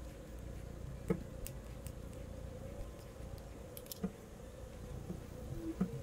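A few light clicks and taps from coloured pencils being handled and set down on a wooden desk, over a faint steady hum.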